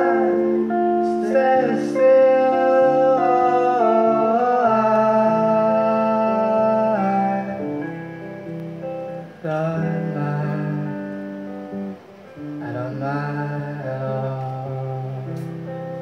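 Live acoustic music: an acoustic guitar playing under a sung melody of long held, wavering notes.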